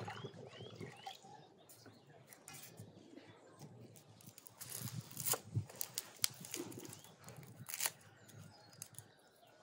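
Water pouring from a clay jug into a glass bowl at the start, with small birds chirping. Then a run of sharp clicks and taps from an onion being peeled and cut with a knife over a wooden board, loudest a few seconds in.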